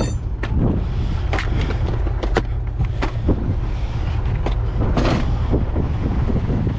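Forklift engine running steadily, with a series of sharp metallic knocks and clanks over it.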